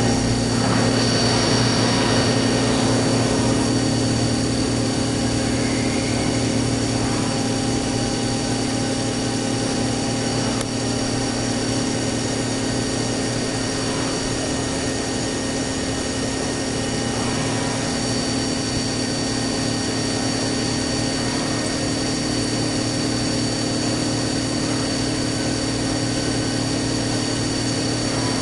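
1994 Mazak VTC-16A vertical machining center milling a part, its spindle and cutter running under coolant: a steady hum with several held tones over a noisy hiss, slightly louder in the first few seconds.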